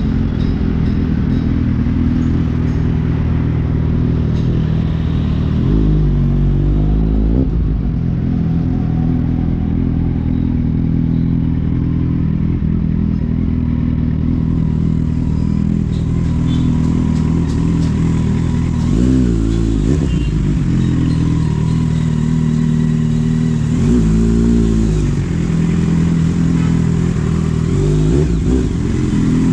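Kawasaki Z800's inline-four engine running under way. Its steady note briefly drops and climbs again in pitch three times.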